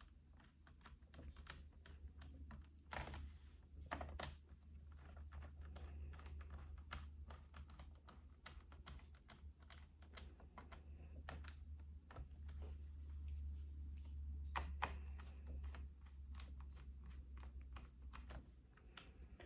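Faint, irregular small clicks and ticks of a screwdriver driving screws back into a laptop's plastic bottom cover, with a steady low hum underneath.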